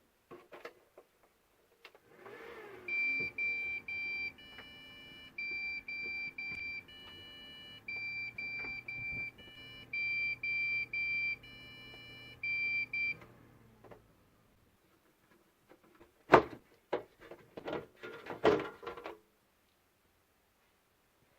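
Desktop PC beeping at power-on: over a low fan hum that spins up first, a run of short beeps at two alternating pitches goes on for about ten seconds, then stops along with the hum. A few knocks and some clatter follow near the end.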